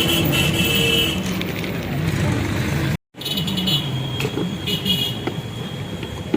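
Street traffic noise with faint background voices, cut off briefly by an edit about three seconds in.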